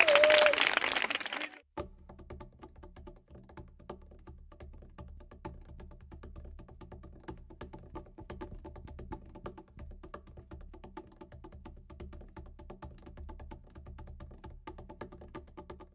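A group of people cheering and calling out, fading away about a second and a half in. Then quiet music with a light, clicking, ticking beat.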